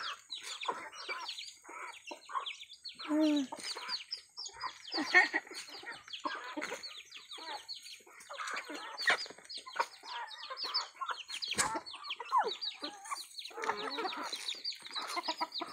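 A flock of chickens clucking in many short, overlapping calls while feeding on scattered corn.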